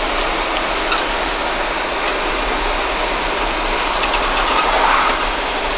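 Steady rushing road and wind noise of a vehicle on the move, even throughout, with no distinct engine note.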